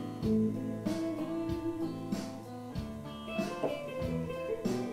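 Background music led by guitar: plucked notes changing every fraction of a second.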